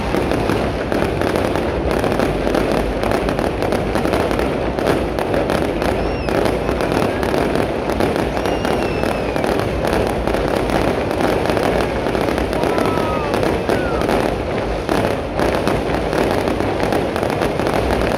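Aerial fireworks going off in a continuous barrage: dense, rapid crackling and popping bursts with no letup.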